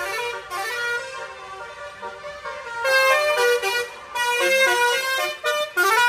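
Telolet basuri multi-tone air horns on trucks playing a melody, loud, pitched notes stepping quickly one after another. They ease off for a moment and come back louder about three seconds in.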